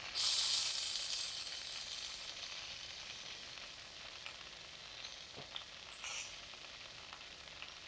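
Meat sizzling in a frying pan on a camping stove: a loud burst of sizzling right at the start fades over the next two seconds, with a shorter flare of sizzle about six seconds in.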